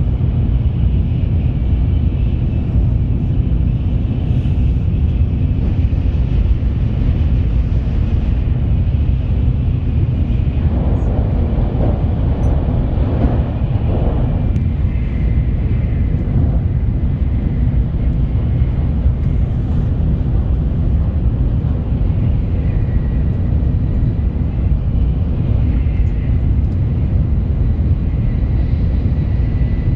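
Shinkansen bullet train running at speed: a steady, unbroken low rumble.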